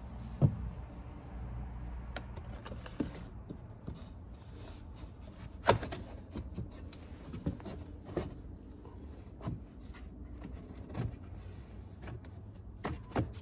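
Scattered knocks and clunks of an aluminum door threshold being lowered and pressed into a door opening, with light rubbing in between. The loudest knock comes a little before the middle.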